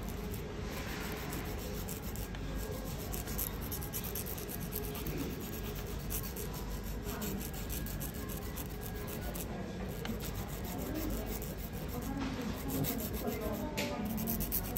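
Nail file rasping across fingernails in quick, continuous back-and-forth strokes.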